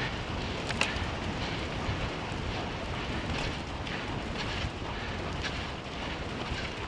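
Steady rolling rumble of a dog scooter's tyres on a dirt forest trail at running speed, mixed with wind on the microphone and faint irregular rattles and clicks from the scooter.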